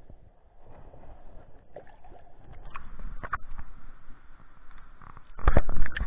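Shallow stream water sloshing and gurgling around a handheld camera as it is moved through and just above the surface. A few knocks about three seconds in and a cluster of loud thumps near the end come from the camera being bumped and handled.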